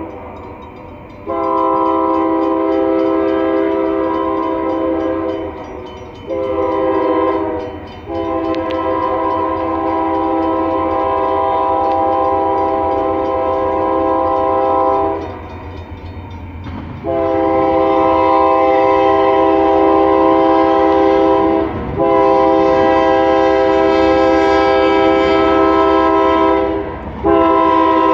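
Union Pacific 6663's Nathan K3LA five-chime air horn blowing a run of long blasts and one short blast for the crossing as the GE AC4400CW approaches. The first blast starts about a second in. The locomotive's engine rumbles underneath and grows louder in the second half.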